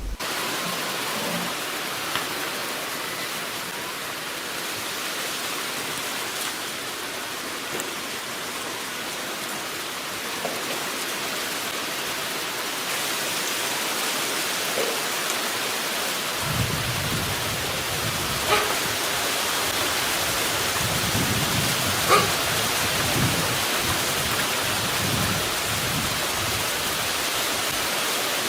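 Blizzard wind blowing with a steady hiss; from about halfway, low gusts buffet the microphone. A few faint clicks.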